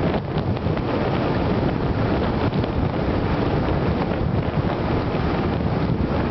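Steady wind buffeting on a camera microphone mounted above the windscreen of a Suzuki Gladius 400 motorcycle riding at road speed, mixed with the bike's running noise.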